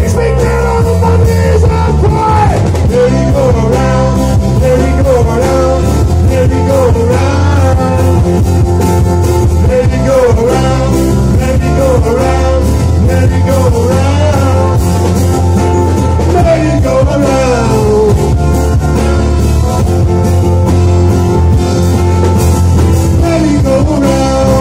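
Live band playing a song on acoustic guitars and electric bass, with a voice singing a wavering melody over a steady bass line and strummed rhythm.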